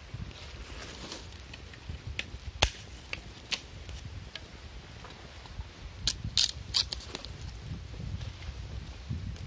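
Small fire of dry leaves and twigs crackling as it catches, with scattered sharp snaps and a louder cluster of them about six to seven seconds in.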